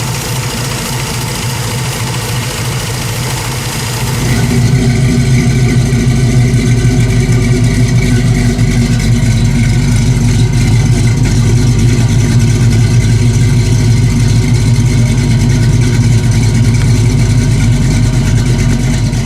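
1966 Chevelle Malibu's cammed small-block Chevy V8 idling with a lopey idle. It gets louder about four seconds in and then holds steady.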